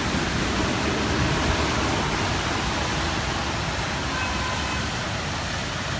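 A steady rush of water as traffic ploughs through deep street floodwater, with the engine of an articulated city bus and the wash thrown off its wheels, then a car splashing through.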